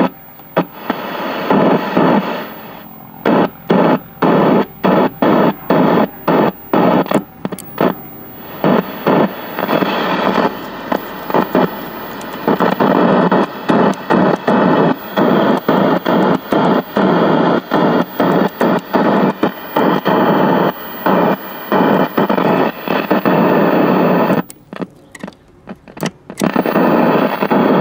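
Loud hiss of static from a 1968 RCA Victor tube TV's speaker, cutting out and back in many times in quick, irregular dropouts, with a longer quiet gap near the end. This is the set's remote-control muting switching the sound off and on as its micro switches are handled.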